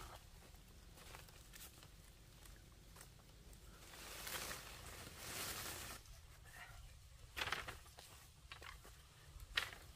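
Palm fronds rustling and swishing as they are handled and trimmed with a machete, swelling for about two seconds in the middle. Near the end come two sharp knocks of bamboo poles against each other as a bundle is stood up.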